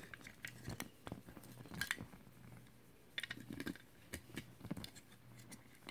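Faint, scattered light clicks and rustles of a white earphone cord and its small plastic storage case being handled as the cable is untwisted and unwound from the case.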